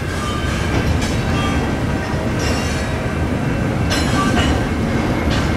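Covered hopper cars being shoved slowly through a road crossing: a steady rumble of steel wheels on the rail, with faint high wheel squeal.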